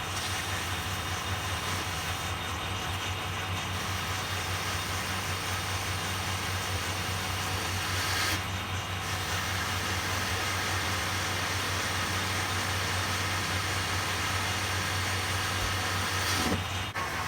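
Grazioli Fortuna metal lathe running steadily, turning a small piece of stock to diameter, with a steady hum under an even hiss that briefly drops out twice.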